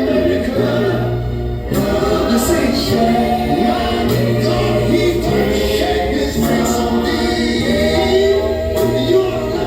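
Music with a choir singing sustained, gliding notes over a steady bass line.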